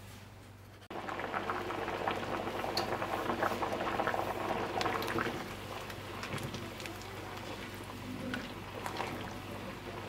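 Pot of curried chickpeas and potatoes boiling: a thick liquid bubbling with many small pops, which starts suddenly about a second in.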